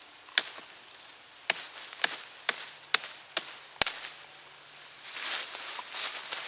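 A large knife blade chopping at the forest floor in sharp separate blows, about seven of them, roughly one every half second. Dry leaves rustle near the end.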